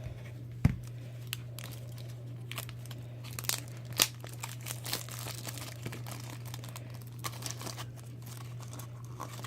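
Plastic toy packaging crinkling and rustling with scattered clicks as a small plastic Shopkins jar is handled and opened, over a steady low hum.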